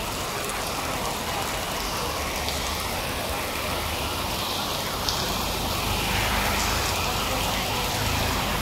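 Heavy rain pouring steadily in a dense, even hiss, with a single brief click about five seconds in.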